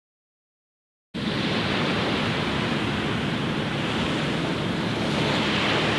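Dead silence, then about a second in a steady, even rush of wind and small waves lapping on a sandy shore begins abruptly.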